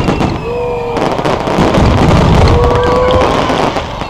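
Aerial fireworks going off: a sharp bang at the start and another about a second in, then a dense run of booms and crackling that is loudest in the middle and fades near the end.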